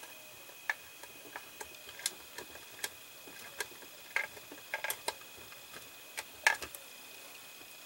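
Small Phillips screwdriver turning a tiny MP01 screw into a plastic model panel: irregular light clicks and ticks as the screw is driven in, one louder click about six and a half seconds in.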